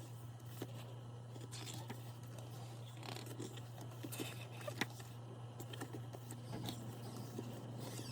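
Faint rustling and light clicks of an album's paper and plastic contents being handled, over a steady low hum.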